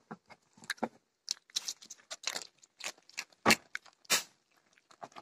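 A goat crunching dry snack chips, mixed with the rustle of burlap sacking as it pushes its head through. Irregular crackles and clicks, the loudest a couple of sharp cracks about three and a half and four seconds in.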